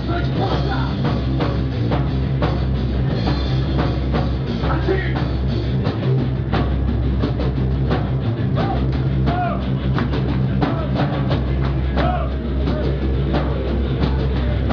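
Loud heavy rock music played on a full drum kit over sustained low bass, with quick repeated drum hits and no singing.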